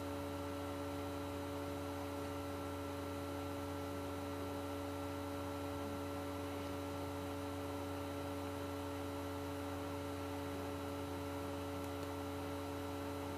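Steady electrical hum with a faint hiss: the recording's background tone, with no other sound.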